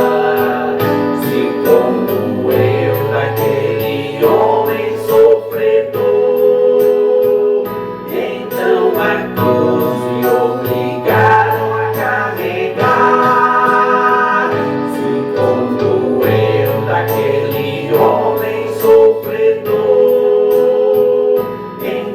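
Gospel song: voices singing, choir-like, over instrumental backing with a steady beat.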